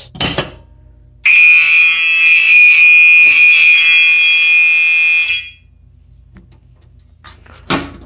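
Fire alarm horns, a Gentex SHG and a Gentex Commander 2 horn strobe, sounding a loud continuous alarm tone after a manual pull station is pulled. The tone starts about a second in and cuts off abruptly after about four seconds.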